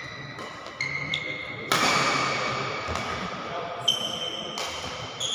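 Badminton rally on an indoor court: shoes squeaking sharply on the court floor and rackets smacking the shuttlecock, the loudest hit about two seconds in, ringing out in the hall.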